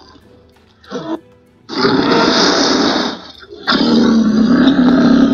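Dubbed creature roar sound effects over background music. A short growl comes about a second in, followed by two long roars, the first starting near two seconds in and the second near four.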